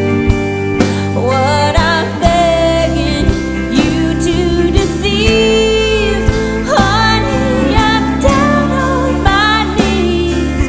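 Alt-country band playing a song with a lead vocal singing over guitars and a steady drum beat.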